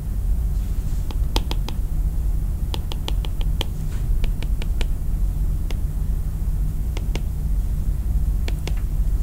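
Light, sharp taps on an iPad's glass touchscreen, coming in small irregular clusters of quick taps, over a steady low hum.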